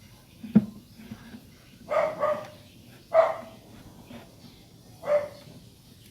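A dog barking: two quick barks about two seconds in, then single barks about a second and about three seconds later. A sharp knock sounds just after the start.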